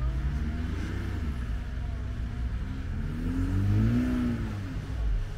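A petrol Land Rover Defender (2-litre) and a 3.2-litre diesel Mitsubishi Shogun revving under load as they pull against each other on a tow strap, their wheels spinning on wet grass without enough traction, so neither moves. A steady engine drone, with one rev rising and falling about three to four seconds in.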